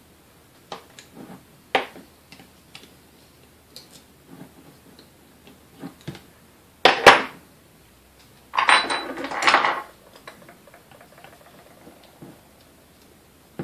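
Metal hand tools clicking and scraping against a 1934 Sunbeam Mixmaster's motor housing as it is taken apart. Light clicks at first, a sharp clatter about seven seconds in, then about a second of rattling metal scrape.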